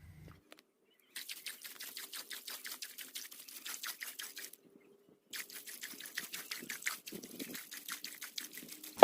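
Rapid, even scratching or scraping strokes, several a second, broken once by a short gap near the middle.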